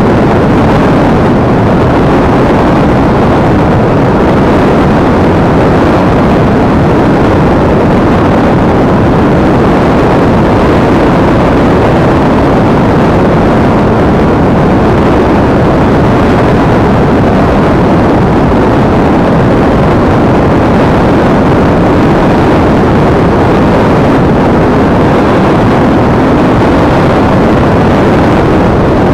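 Loud, steady in-flight noise of a Multiplex EasyStar foam RC plane, heard from an action camera mounted on it: a rush of airflow and the plane's electric pusher motor and propeller, unchanging throughout.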